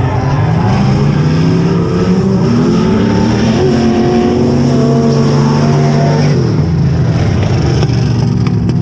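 A drift car's engine revving, its pitch climbing over the first couple of seconds, holding high, then dropping away near the end. A steady high whine runs underneath throughout.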